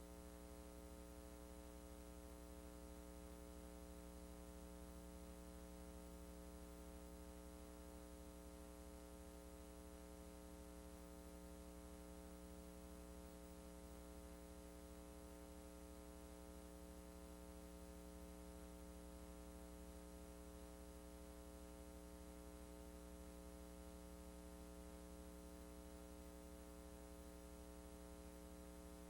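Faint, steady electrical mains hum with a light hiss and no other sound: the line noise of a video transfer that carried no recorded audio.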